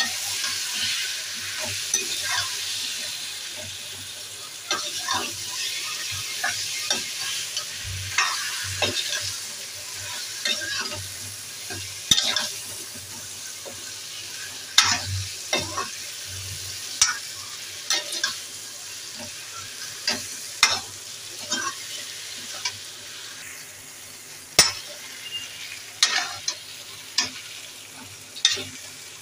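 Raw mango slices frying in oil in a pan, sizzling strongly at first and then fading to a softer sizzle. A metal spatula stirs them throughout, scraping and knocking against the pan in irregular clicks.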